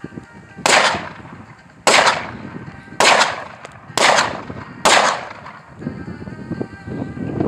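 Five handgun shots, roughly one a second, each a sharp crack followed by a short echo fading off the berm.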